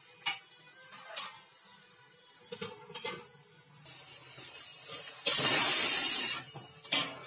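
A spatula knocks and scrapes against a kadai of chicken masala frying in oil, several short clinks. Partway through comes a rising hiss, then a loud burst of sizzling hiss lasting about a second as the steel lid comes off the hot pan.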